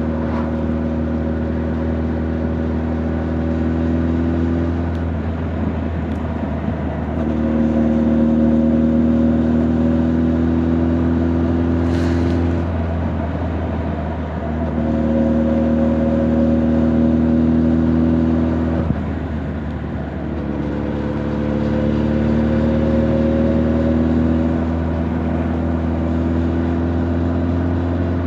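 Honda CB1300 Super Bol d'Or's inline-four engine and exhaust under way, heard from the rider's back: a steady, deep drone that eases off and comes back on three times, roughly every five to seven seconds, as the throttle is closed and reopened.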